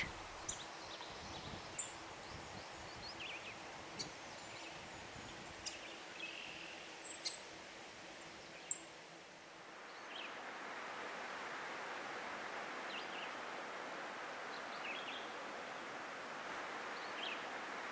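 Quiet outdoor ambience with scattered short bird chirps. A faint steady hum fades out about ten seconds in, and a slightly louder steady hiss takes over.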